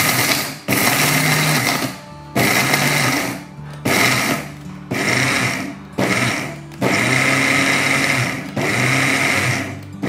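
Electric mixer grinder with a small stainless-steel jar pulsed on and off about eight times in short bursts of about a second each, dry-grinding roasted whole coriander seeds, nuts and dried coconut into a coarse powder.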